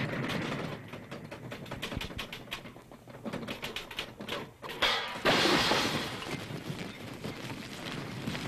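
Cartoon sound effects of a tank tumbling down a cliff among falling rocks: a continuous clattering noise full of rapid knocks, with a louder crash about five seconds in.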